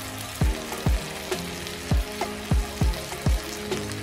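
Chicken frying in oil in a pan, a steady sizzle, under background music whose deep kick drum beats, dropping in pitch, are the loudest sound.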